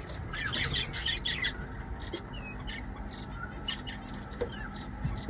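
Small cage birds, budgerigars among them, chirping in short high calls, busiest in the first second and a half and then scattered.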